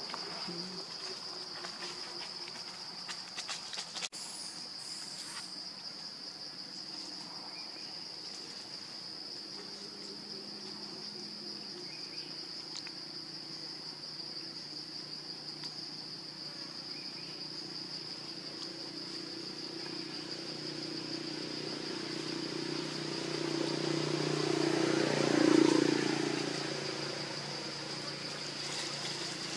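Steady high-pitched drone of insects, with a motor vehicle passing: its engine sound swells, peaks near the end and fades away.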